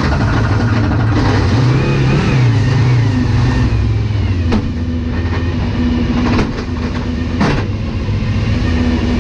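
Volvo S40 TWR Super Touring race car's engine running at a steady idle, heard from inside the cockpit, with three sharp clicks about halfway through and near the end.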